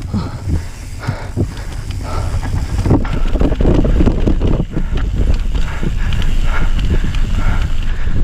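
Mountain bike descending a rough dirt singletrack at speed: tyres rolling and crunching over dirt and rocks, with the bike's parts rattling and knocking over the bumps, and wind buffeting the microphone throughout.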